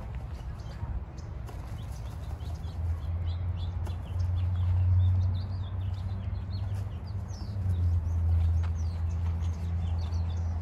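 Small birds chirping repeatedly over a low steady rumble that swells twice, around the middle and again a little later.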